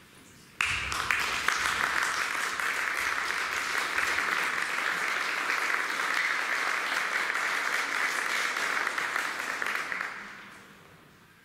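Audience applauding. It starts suddenly about half a second in, holds steady, then dies away over the last second or so.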